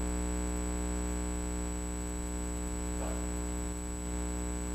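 Steady electrical mains hum: a buzz with many overtones and a thin high whine above it.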